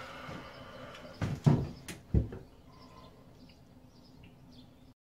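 A few loud knocks and thuds about a second and a half in, from someone moving about inside a small wooden boat cabin. These are followed by faint, short bird chirps.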